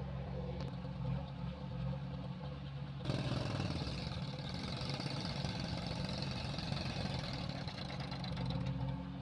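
Heavy diesel engine running steadily; about three seconds in it suddenly gets louder and harsher and stays that way until near the end.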